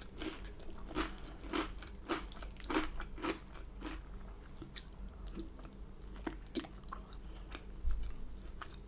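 A person chewing food close to the microphone: a run of wet mouth clicks and crunches, about two a second at first, then sparser in the second half.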